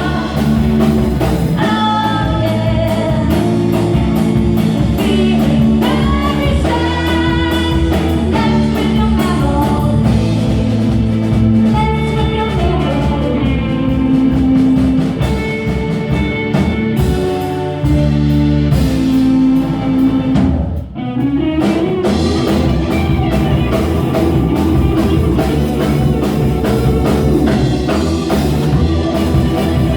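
Rock song playing, with singing, guitar and drum kit; the music briefly drops out about two-thirds of the way through.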